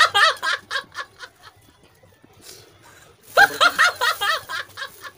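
High-pitched laughter in quick ha-ha-ha bursts: one round trailing off in the first second or so, another breaking out about three seconds in.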